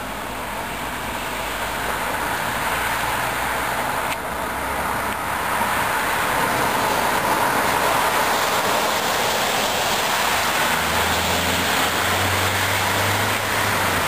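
Road traffic passing, including an ambulance running on blue lights: tyre and engine noise that builds to its loudest about halfway through and stays up, with no siren. A low engine hum comes in for the last few seconds.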